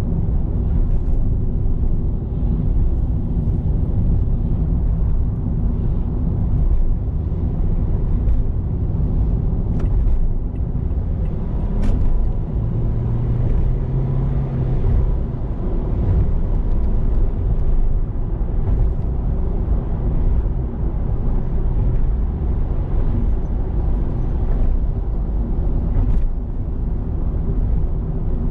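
Steady low rumble of a car driving on the road, heard from inside the cabin: tyre and engine noise with no break, and a low hum that rises briefly about halfway through.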